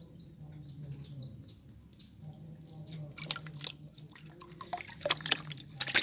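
Water splashing and dripping in a basin as hands move a wet zebra dove around in it: short, sharp splashes and drips clustering from about halfway through, over a faint low hum.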